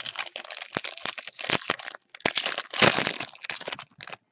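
Plastic wrapper of a Topps baseball card jumbo pack being torn open and crumpled by hand. It gives a dense crinkling with sharp crackles, loudest about three seconds in.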